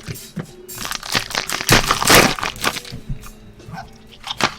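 Trading cards and a foil pack wrapper being handled: a run of crinkles and clicks, with a louder, denser crackle about two seconds in. Faint background music runs underneath.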